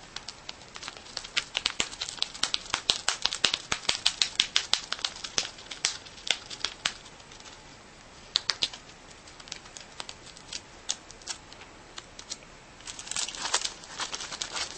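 A baby rabbit biting and chewing the edge of a paper envelope: quick, crisp crackles and snips of paper, dense for the first several seconds, then scattered, with another flurry near the end.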